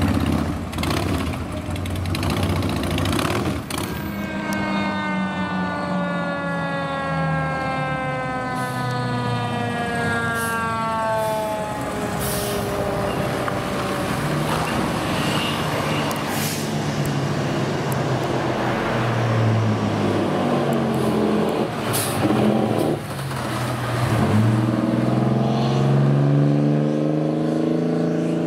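Fire trucks responding: a siren falling slowly in pitch over several seconds, a few short hisses, then a heavy truck's diesel engine rising in pitch as it picks up speed near the end.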